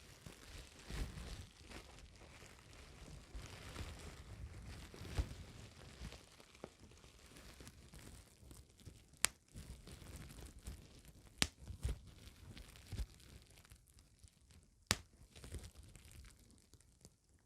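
Plastic bubble wrap being crinkled and handled, with three sharp pops as single bubbles burst.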